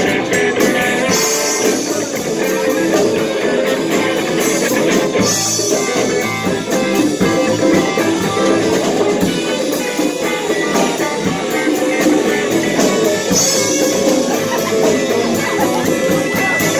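Live band playing, with electric guitar to the fore over drums.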